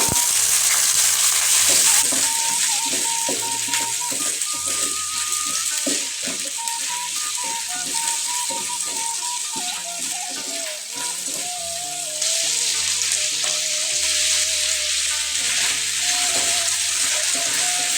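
Food frying and sizzling in a hot pan with the scrape and knock of a utensil stirring it; the sizzle gets louder about twelve seconds in.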